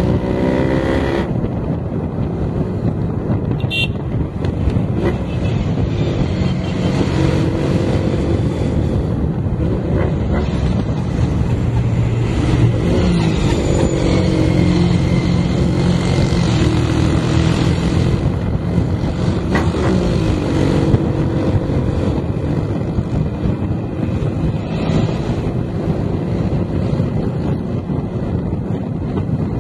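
Cafe racer motorcycle engine running while riding, its pitch rising and falling several times, over a steady rush of road and wind noise.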